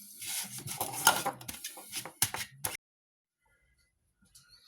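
Kitchen clatter: a string of knocks and scrapes from utensils and a pot being handled, which cuts off abruptly into dead silence a little under three seconds in.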